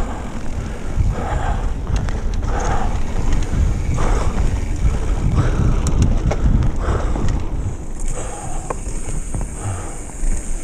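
Mountain bike riding fast down a dirt singletrack: wind buffeting the camera's microphone with a steady low rumble, tyre noise on the dirt, and the bike clicking and rattling over bumps.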